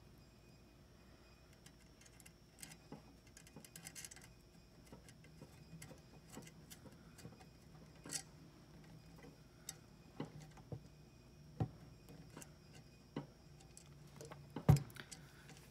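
Faint, irregular small clicks and taps of a thin copper siphon tube being handled and coiled by hand over a model steam locomotive's brass fittings, with one louder tap near the end.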